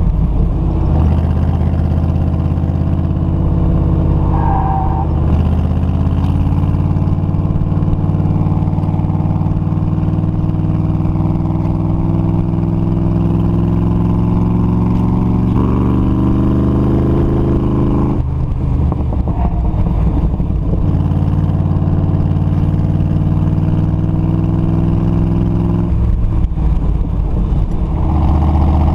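Factory Five Cobra replica's engine working hard through an autocross run, heard from the open cockpit. Its note climbs steadily for about ten seconds, drops off sharply, holds, and rises and falls again near the end.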